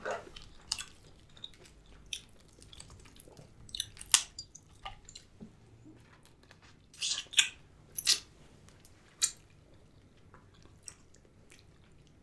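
Close-miked eating sounds from a seafood boil: wet chewing and smacking in irregular short bursts, loudest around four, seven and eight seconds in, then falling mostly quiet for the last few seconds.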